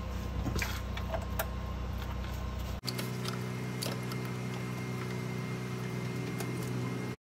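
Steady low mechanical hum with a few scattered light clicks and taps as a filter wrench is fitted and worked onto a car's oil filter. The hum changes abruptly about three seconds in.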